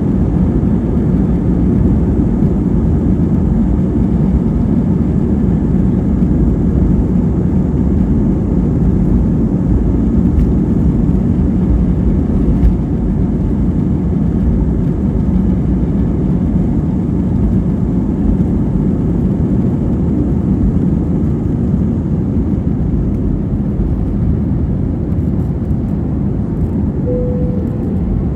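Steady, loud cabin rumble of an Airbus A320-200 airliner with its engines running, heard from an economy seat. A brief single tone sounds near the end.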